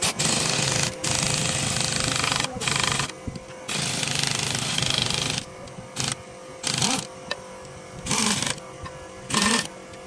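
A power tool run in repeated bursts: long runs of a second or more in the first half, then shorter blips of under half a second.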